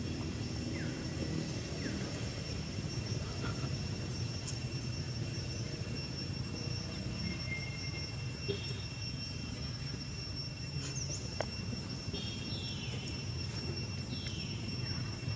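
Steady low rumble of outdoor ambience, with faint steady high-pitched tones and a few brief faint chirps and short falling calls scattered through.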